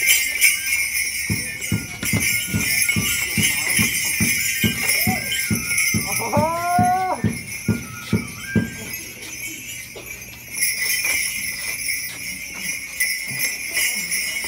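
Small bells jingling steadily with the dancers' movement, over a quick, regular run of beats or stamps that stops about nine seconds in. A brief pitched, sliding sound comes about seven seconds in.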